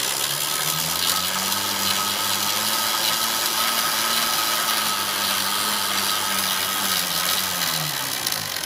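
Bicycle chain drive spinning a 250 W electric motor that is working as a generator: a steady mechanical whir with a low hum. The hum rises in pitch as the wheel speeds up to a moderately fast pace in the first second or so, then drops near the end as it slows.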